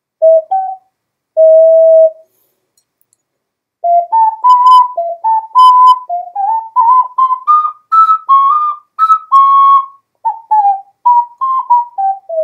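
Ceramic ocarina played by a beginner: two short notes and a held note, a pause, then from about four seconds in a halting run of short, pure notes stepping up and down as she tries a melody.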